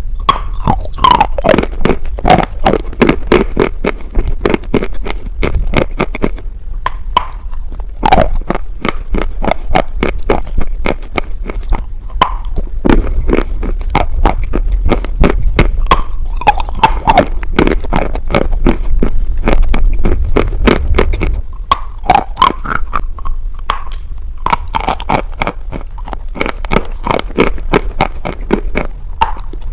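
Close-miked biting and chewing of dry edible chalk: a dense run of crisp crunches and crumbling, easing briefly about seven seconds in before the chewing picks up again.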